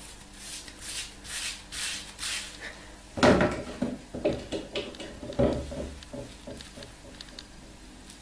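Hands working shampoo into the roots of twisted afro-textured hair: a run of soft scratchy rubbing swishes. About three seconds in and again near the middle come louder rustles with a dull bump.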